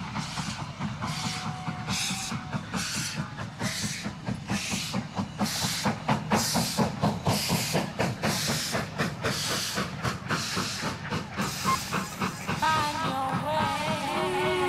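Background music: a rhythmic track with a hissing beat about twice a second over a fast low pulse, and a melody that comes in near the end.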